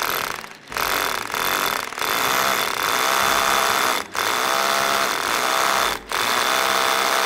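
Hammer drill with a masonry bit boring into a concrete curb, running steadily under load. It stops briefly three times, about half a second, four and six seconds in.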